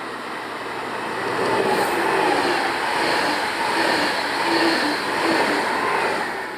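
Electric train passing close by: wheel-on-rail rumble with a light clatter swells about a second and a half in, stays loud with small surges, then fades near the end.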